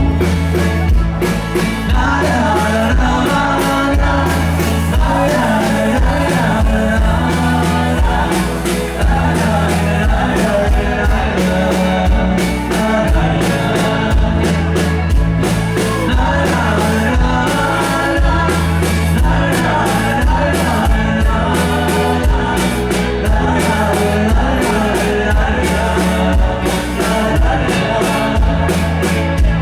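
Live band music with a singer over bass and drums.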